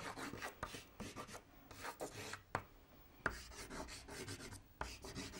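Soft pastel stick scraping and rubbing across paper in short, irregular strokes as lines are drawn, with a few sharper scratches in the middle.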